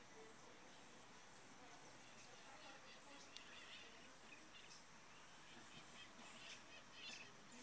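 Near silence: faint background hiss with a few faint, short, high chirps.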